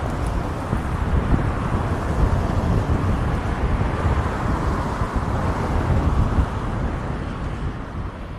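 Steady rushing, rumbling noise of inline skating at speed: skate wheels rolling on pavement and wind buffeting the helmet-mounted microphone.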